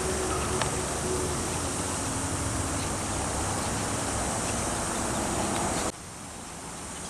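Steady outdoor background noise with a faint low hum running through it; the level drops suddenly about six seconds in.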